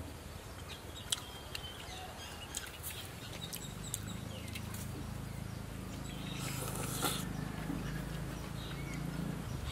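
Close mouth sounds of a person chewing a mouthful of boiled fertilized duck egg (balut), with a short noisy burst a little before seven seconds, over faint bird chirps.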